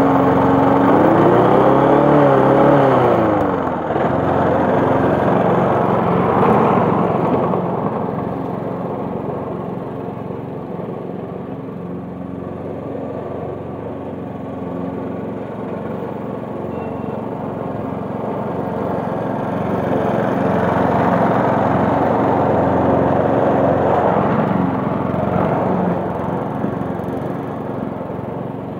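Wolf QF petrol push lawn mower engine running and cutting grass. About a second in, the engine speed rises and then falls back to a steady run; later the sound grows fainter as the mower moves away, and louder again as it comes back.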